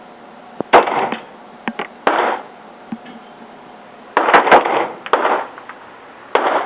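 Sig Sauer .40 S&W pistol firing a string of single shots at irregular spacing, each a sharp report with a short echo, two of them close together past the middle.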